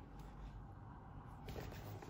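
Cardboard smartwatch box handled and turned over in the hands: faint rubbing of cardboard, with a soft tap about one and a half seconds in.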